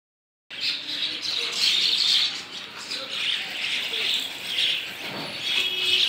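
A flock of birds chirping without pause, many high-pitched calls overlapping.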